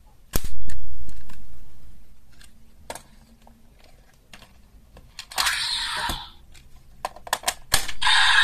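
Hard plastic toy parts being handled: a loud snap about half a second in, then scattered light clicks and a short rattle. Near the end a Wonder Ride Book clicks into a Kamen Rider Saber toy belt, and the belt's electronic sound starts.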